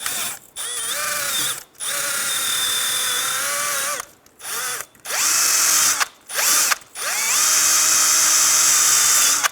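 Power-driven wire wheel run in several short bursts, each starting with a rising whine as it spins up, scrubbing rust and corrosion out of the steering knuckle bore where the rear wheel bearing hub seats.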